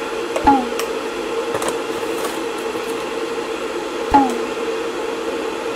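Two knocks of a plastic bottle and spoon being handled on a kitchen counter, about half a second in and again about four seconds in, each with a brief falling squeak, over a steady appliance hum.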